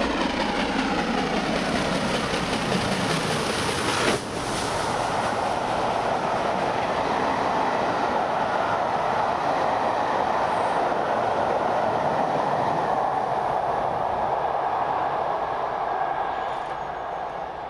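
LNER A4 Pacific steam locomotive 60019 Bittern passing at speed beneath the bridge, its sound falling in pitch as it comes under, followed by the steady rushing and clatter of its train of coaches on the rails. A single sharp knock comes about four seconds in, and the noise fades near the end as the last coach goes by.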